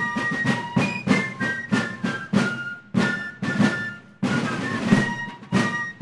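Fife and drum music: fifes play a march melody of high, held notes over steady, rhythmic strokes on field drums.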